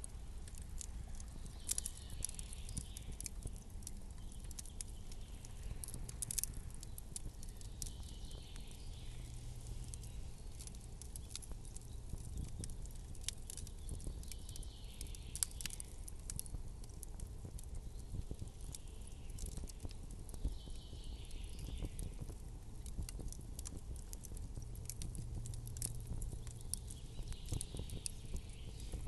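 Campfire crackling: wood fire giving off irregular small pops and snaps over a low steady rumble, with a soft hiss that swells and fades about every six seconds.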